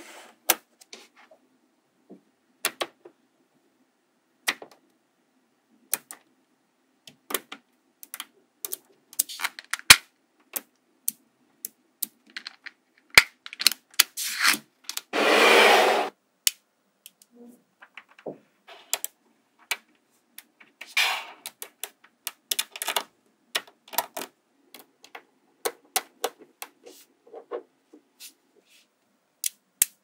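Small magnetic balls clicking and snapping together in irregular sharp clicks as strips of balls are laid down and joined. About halfway through comes one longer burst of noise lasting about a second.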